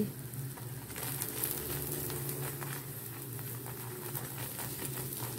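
Paratha frying on an iron tawa, sizzling with light crackling clicks as oil is spread over it with a steel spoon, over a low steady hum.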